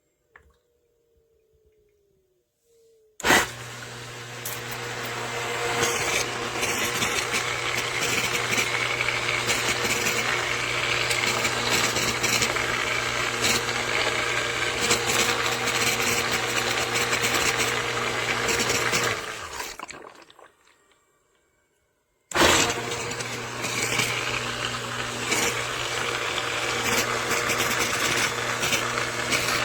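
Submersible sump pump starting suddenly and running with a steady motor hum under loud rushing, splashing water, then winding down and stopping, and starting again about two seconds later.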